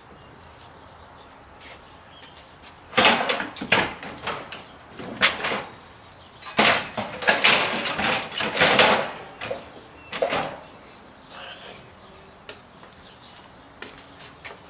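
Scrap parts from an electric scooter being handled and set down: several bursts of clattering knocks, densest from about three to nine seconds in, with a last knock just after ten seconds.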